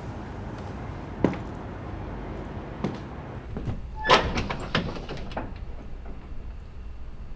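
A closet door being handled and opened: a sharp click, another a moment later, then a quick run of loud rattling clacks about four seconds in, over a steady low room hum.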